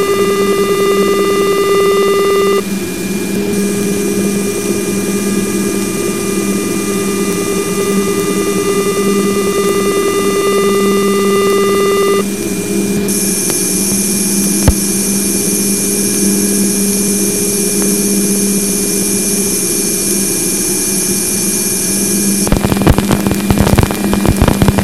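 Voyager 2 plasma wave instrument's wideband waveform played as audio: steady interference tones, including the spacecraft power supply's constant 2.4 kHz tone and narrow tones from the particle instruments, over a hiss. The set of tones changes abruptly twice, a high hiss joins about halfway, and near the end the sound breaks into dense crackling clicks.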